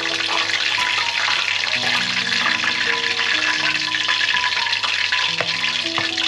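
Spring rolls deep-frying in hot oil: a steady, loud sizzle with crackles. Background music with a slow melody plays over it.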